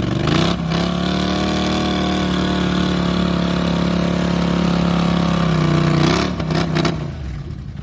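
ATV engine revved up and held at high revs for about five seconds, then dropping back off the throttle, with a couple of short blips afterwards, as the machine works in deep mud.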